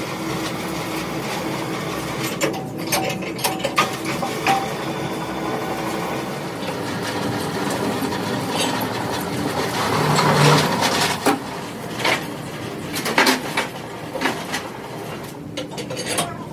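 Electric three-roll plate bending machine running, its rolls turning a steel sheet into a cylinder: a steady motor hum with scattered metal clanks and knocks, and a louder rush of noise about ten seconds in.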